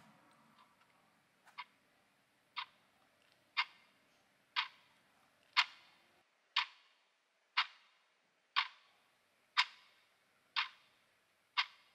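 Clock ticking about once a second, fading in over the first few ticks and then steady.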